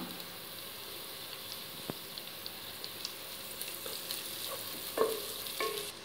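Sliced onions and crushed small onions (shallots) sizzling as they fry in ghee and oil in a pot, stirred with a wooden spatula. A few clicks of the spatula against the pot can be heard, the loudest one about five seconds in.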